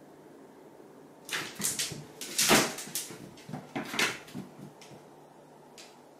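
A house cat's paws thudding and scrabbling on the floor and against the wall as it pounces and leaps after a light dot. A flurry of knocks and scrapes starts about a second in, is loudest in the middle and dies away before the end.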